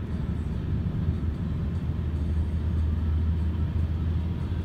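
Steady low rumble of engine and road noise heard from inside a moving car.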